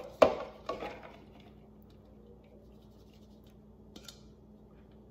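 Two or three sharp knocks of a plastic mixing bowl against a glass bowl within the first second. Later there is a single faint tick about four seconds in, as pulled chicken is tipped from the plastic bowl into the glass one.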